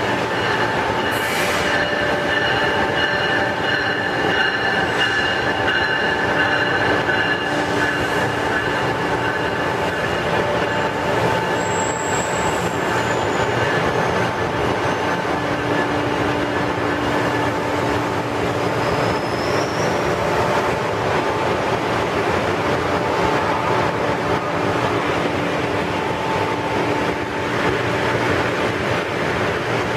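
Bombardier Acela Express trainset standing at the platform, its onboard electrical equipment giving a steady hum with a high electric whine of several held tones, over an even station din.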